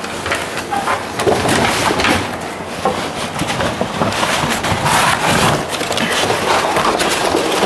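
A large sheet of reflective metallic conductive fabric being unfolded and lifted, crinkling and rustling unevenly.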